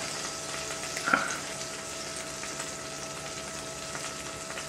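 Leftover burger grease steadily sizzling and crackling in a hot cast iron skillet, with a single sharp clink about a second in.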